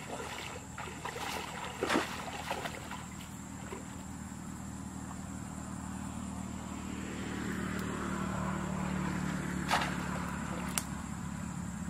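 Water sloshing and splashing as a person wades through a flooded rice paddy and presses a bamboo plunge basket into the water, with a few sharp splashes. A steady engine hum runs underneath, growing louder from midway and easing near the end.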